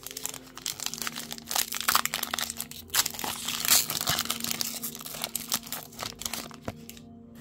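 Foil booster pack wrapper crinkling as it is handled and opened, a dense run of sharp crackles, loudest about two and four seconds in.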